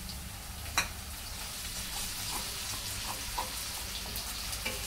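Chopped green onion, garlic, green chilli and ginger sizzling in hot oil in a heavy-bottomed kadai, stirred with a spatula. One sharp knock comes about a second in, with a few lighter clicks after.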